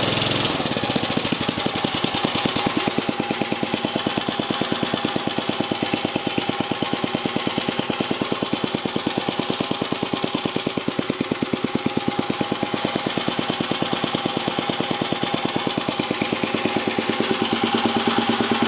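1979 Briggs & Stratton 5 hp single-cylinder flathead engine running. About half a second in it drops from a fast, smooth run to a steady idle with evenly spaced firing pulses, and it runs a little louder near the end.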